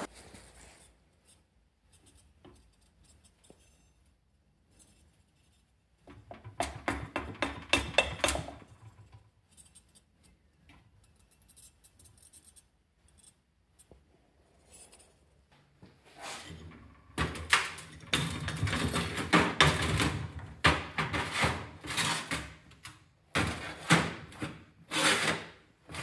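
Metal casting gear being handled: a few seconds of scraping and rubbing about six seconds in, then from about sixteen seconds in a long run of irregular scraping, rubbing and knocking of metal on metal and stone.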